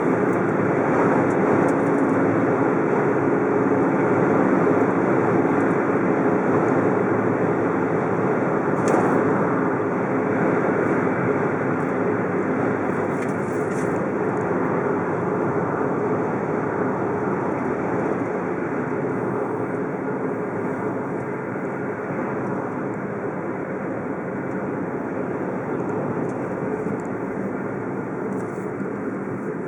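Steady noise of a car on the move: engine hum under a dense rush of road noise, easing off slightly over the last half.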